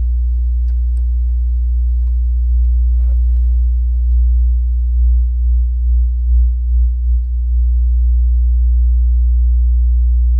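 Subwoofer playing a loud, steady low test tone, fed through a microwave-oven transformer wired as an audio filter. About a third of the way in the tone swells and wavers in loudness several times, then settles back to steady.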